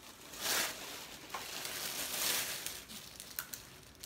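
Plastic seafood-boil bags crinkling in two short rustles as hands dig into the food, followed by a couple of sharp clicks near the end.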